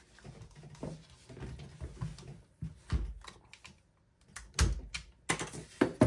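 Irregular metal clicks and knocks from a Lockhart Tactical Raven 5.56 rifle being handled while its factory-stiff takedown pins are pushed out, louder taps coming close together near the end.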